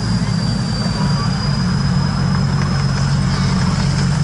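Miniature railway diesel locomotive's engine running steadily, a low even drone with a thin high whine above it.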